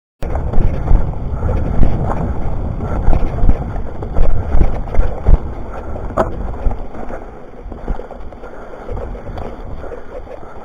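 Ride-camera audio from a bike on a dirt trail: wind buffeting the microphone over knocks and rattles from the bike, busiest over the first seven seconds or so, with a sharp click a little after six seconds.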